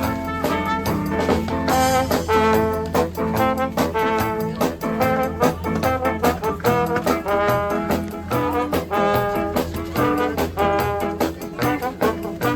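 Background music: an upbeat jazz or swing track led by brass, with a steady beat.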